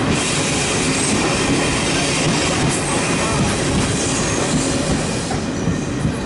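Express passenger train running at speed, its steel wheels on the rails making a steady, loud running noise as heard from aboard the coaches.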